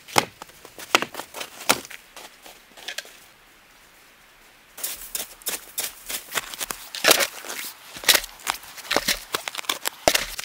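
A shovel digging through snow, dead bracken and frozen earth: sharp crunches and scrapes as the blade bites in. A few separate crunches come first, then a short lull, then a quick run of them from about five seconds in.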